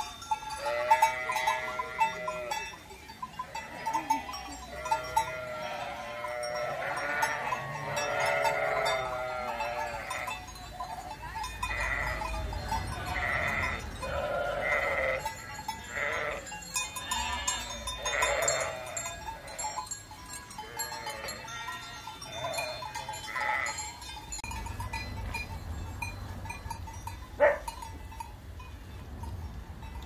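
A large grazing flock of sheep bleating over and over, many overlapping calls at first and scattered ones later, with livestock bells tinkling throughout. A single sharp click comes near the end.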